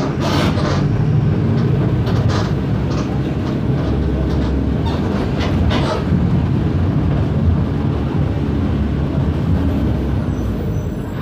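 Mercedes-Benz OF 1519 bus diesel engine running steadily under way, a low drone with scattered rattles and knocks from the bus body.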